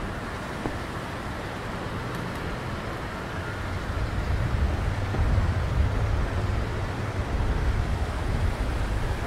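Steady city street noise, mostly distant traffic, with a low rumble that swells from about four seconds in.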